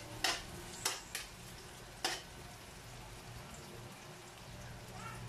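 Sliced onion and garlic sizzling in oil in a metal wok, with a slotted metal spatula scraping and clacking against the pan four times in the first two seconds, then a steady low sizzle.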